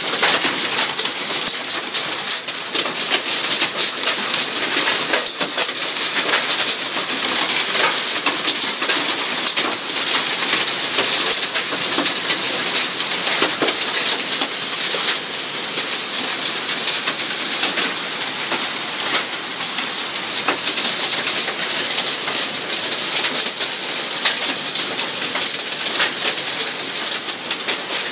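Hailstorm: hailstones and rain pelting grass, leaves and stone paving. It makes a steady, dense patter of countless small ticks.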